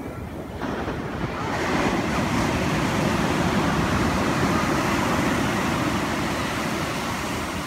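Ocean surf: a small wave breaking close by and its foam washing up the sand. The rush swells over the first second or two, holds steady, then eases slightly near the end.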